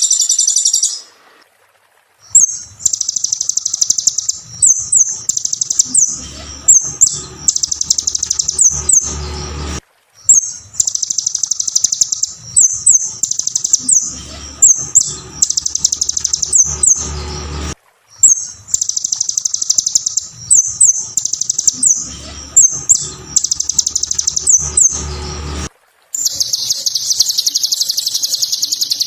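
Kolibri Ninja (konin) sunbird singing a fast, high, sharp chattering song in long phrases. The phrases repeat almost identically with brief breaks between them.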